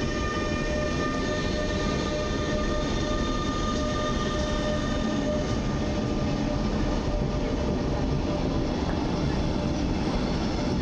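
Bombardier Traxx EU47 electric locomotive pulling away with a double-deck train, its traction equipment giving a steady electric whine of several pitches that fades as the coaches roll past with a constant rumble of wheels on rail.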